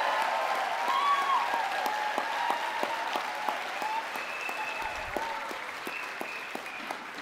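Audience applauding with some cheering voices, the clapping slowly dying down.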